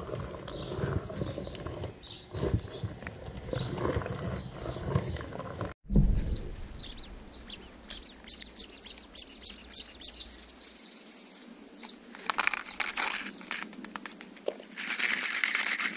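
Hand-cranked cast-metal meat grinder turning with a rhythmic grinding as it forces chocolate mush through its plate; it stops about six seconds in. A run of sharp high bird chirps follows, then light rustling near the end.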